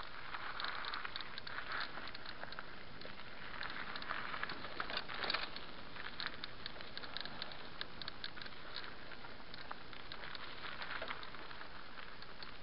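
Mountain bike rolling downhill on a dry dirt and gravel singletrack: its tyres crackle over loose stones, with many quick clicks and rattles from the bike and a steady rushing hiss.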